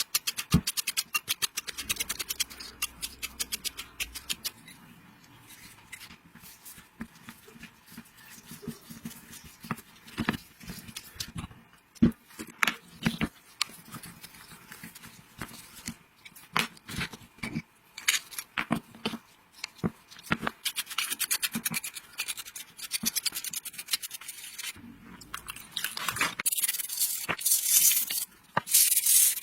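Hand work on chainsaw parts: many sharp clicks and taps with short scraping and rubbing strokes, turning into a steadier hissing, rasping rub in the last few seconds.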